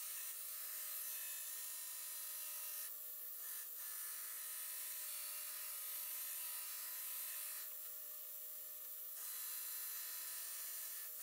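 Belt grinder running steadily as a Damascus steel dagger blank is pressed against the belt for rough profiling: a steady motor hum with a hissing grind. The sound shifts abruptly twice.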